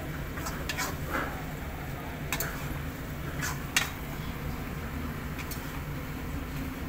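A steel spatula scrapes and knocks against a kadhai as thick masala with peas is stirred, giving scattered clicks and scrapes, the sharpest just before the four-second mark, over a steady low hum.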